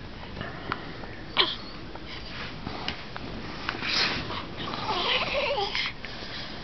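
Newborn baby's small noises while stretching: a quick squeak falling in pitch, breathy snuffles, and a brief wavering whimper near the end.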